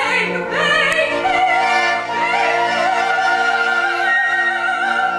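Operatic singing: long held notes with a wide vibrato, stepping upward in pitch early on, over a steady sustained accompaniment chord.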